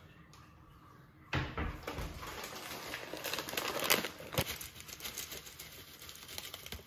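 Granola bag crinkling and rustling as it is handled and opened, starting about a second in, then granola pouring from it into a wooden bowl near the end.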